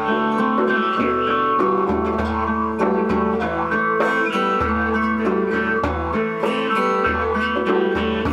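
Acoustic guitar strummed in a steady rhythm, played together with jaw harps whose twang sweeps up and down over a held drone, under deep bass notes that change every second or so.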